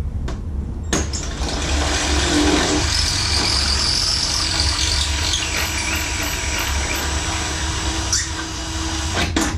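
Cordless drill running, boring a rivet hole through thin sheet metal; it starts about a second in and stops near the end.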